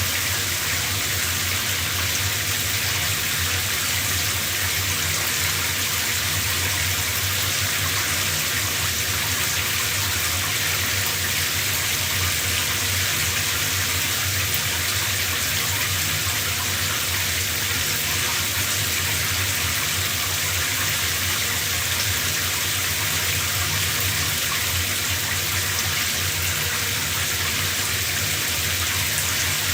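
Shower spray running steadily, an even hiss of water falling with no breaks.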